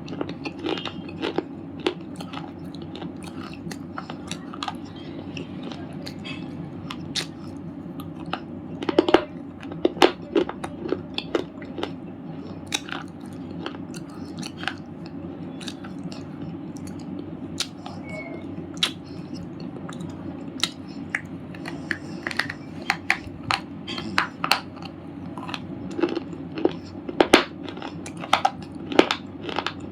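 A person biting and chewing chips of red slate, giving sharp, irregular crunches that come in thicker clusters about a third of the way in and again near the end, over a steady low hum.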